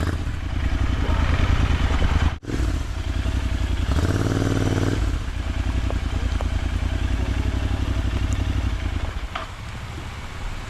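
Motorcycle engine running close by, cut off for an instant just over two seconds in, revved up with a rising pitch at about four to five seconds, and quieter near the end.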